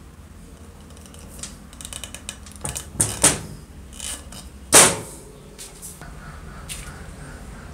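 Light clicks and sharp knocks as the metal and plastic parts of a circular saw's housing and handle are handled and fitted together. A scatter of small clicks comes first, then two sharp knocks about three seconds in and the loudest knock near five seconds.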